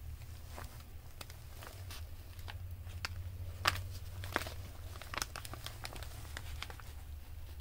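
Paper crinkling and rustling with scattered sharp clicks as handmade paper journal pages and embellishments are handled; the loudest click comes a little under four seconds in. A steady low hum runs underneath.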